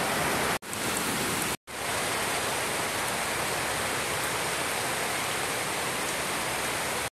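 Heavy rain falling, a steady hiss, broken by two brief sudden gaps near the start.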